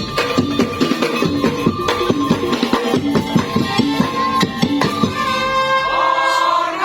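Madurese daul (tong-tong) ensemble playing: a fast, steady beat of drums and percussion under a sustained melodic line, with a sliding melodic phrase near the end.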